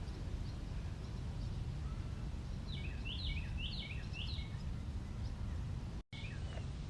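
Steady low outdoor rumble, with a songbird singing a quick series of about six down-slurred whistled notes about three seconds in. The sound cuts out for a moment near the end, then a few more of the same notes follow.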